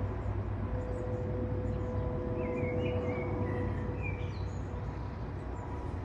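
Boeing 777 jet engines heard from the ground as the airliner flies overhead: a steady low rumble with a faint, even whine running through it.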